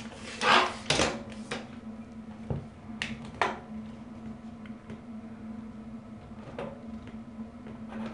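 A steel tape measure being handled against a wall: a few short clicks and rattles of the case and blade, the loudest about half a second in, over a steady low hum.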